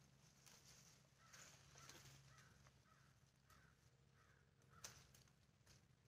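Near silence: a faint background with a few faint calls and a single soft click near the end.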